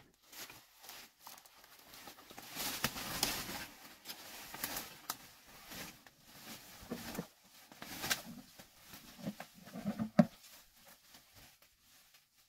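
Leaves and brush rustling and twigs crackling underfoot as a person pushes through dense undergrowth, with a sharp snap about ten seconds in and the rustling fading near the end.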